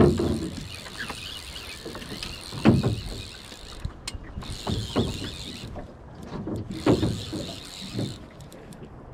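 Fly reel ticking in spells while a hooked trout is played, stopping and starting several times, with a few dull knocks from the rod and reel being handled.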